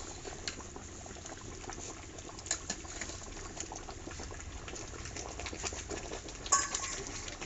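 Fish-head curry bubbling at a rolling boil in an open pot, with many small pops and crackles. A brief sharp sound stands out about six and a half seconds in.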